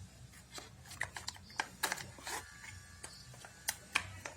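Handling sounds: a string of sharp clicks and short rustles, as of parts and packaging being picked up and set down.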